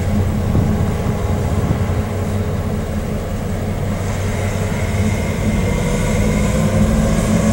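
Diesel locomotive engine running with a steady low drone; a fainter whine rises slowly through the second half.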